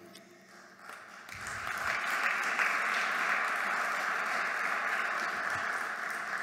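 An audience applauding. The clapping builds up over the first two seconds, holds steady, and fades toward the end.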